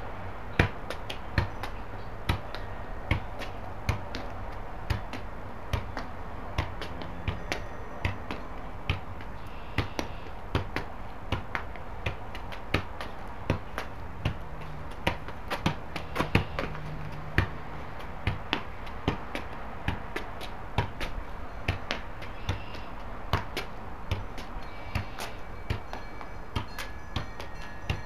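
A soccer ball being juggled: a steady run of sharp thuds as foot and knee strike the ball, roughly two a second.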